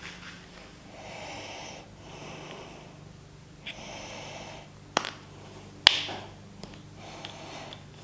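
A person breathing heavily through the nose close to the microphone, one breath about every second and a half. Two sharp clicks come about five and six seconds in, the second the loudest.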